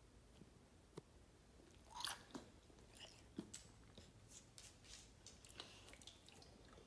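A pit bull eating, with faint, irregular chewing and wet mouth clicks; the loudest bite comes about two seconds in.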